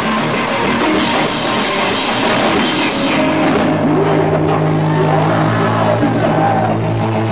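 Heavy rock band playing loud: distorted electric guitars, bass and a drum kit with crashing cymbals. About three seconds in the cymbals and drums fall away and a held chord rings on.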